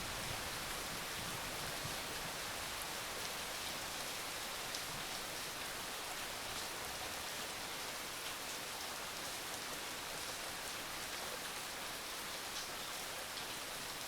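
Steady rain, an even hiss with a few separate drops ticking out of it now and then.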